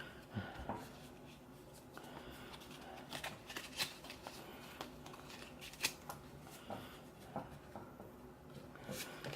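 Trading cards being handled and flipped through: scattered light clicks, rustles and slides of card stock, a little busier about three to four seconds in.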